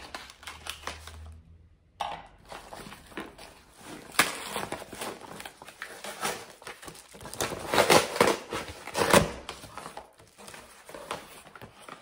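A cardboard package being torn open by hand, its packaging rustling and crinkling in irregular bursts, loudest twice near the end.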